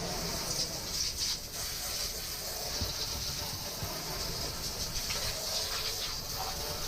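Steady, even hiss of a spray, strongest in the high range, as the emptied anchor chain locker is cleaned out.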